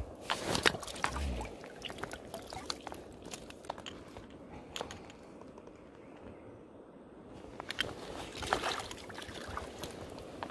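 Someone wading in a shallow river: water sloshing and splashing around the legs, with scattered clicks and crunches of stones underfoot. It is busiest in the first second or so and again about eight seconds in.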